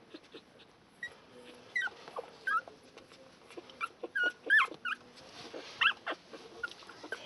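Two-week-old puppies whimpering in short, high-pitched squeaks that slide up and down in pitch. The cries come one after another and are thickest in the middle and latter part.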